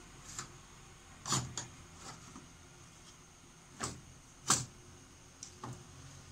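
Drum unit of a Toshiba e-STUDIO 2303A/2309A photocopier being slid into its slot by hand: a string of irregular plastic clicks and knocks as it seats. The two loudest knocks come about a second and a half and four and a half seconds in.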